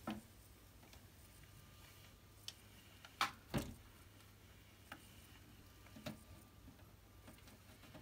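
A few light clicks and knocks in a small plastic tub as an African bullfrog shifts its body with a hamster in its jaws. The two loudest come close together about three seconds in, with fainter ones scattered around them over a low steady hum.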